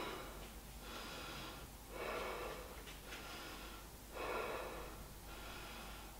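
A person breathing audibly through the nose and mouth while holding a yoga pose, with a breath about every two seconds.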